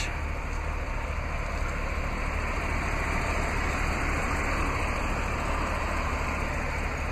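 A vehicle engine idling: a steady low rumble that holds even throughout.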